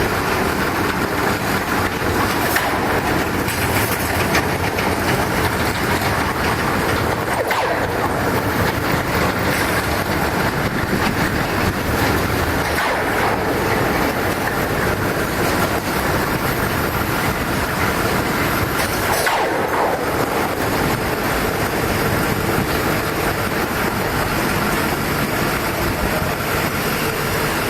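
Continuous welded rail train working on the track, giving a steady, loud mechanical noise of rail cars and machinery.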